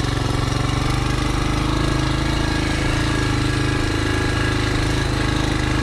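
Dirt bike engine running steadily at low, even revs, close to the microphone.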